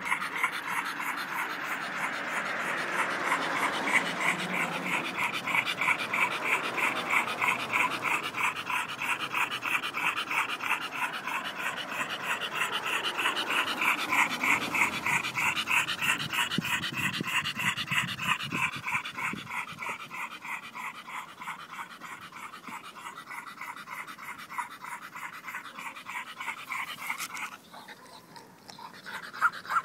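A brindle bull-type dog panting hard and fast with its tongue out, in a quick, even rhythm that drops out briefly near the end and then starts again. The owner calls the dog asthmatic.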